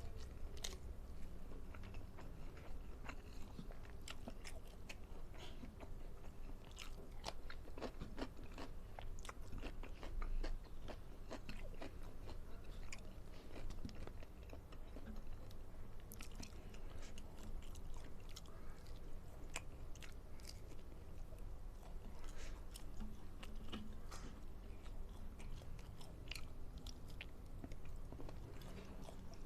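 Close-up eating sounds: a person chewing and biting on rice and stir-fried chicken liver and gizzard, with scattered wet crackles and crunches.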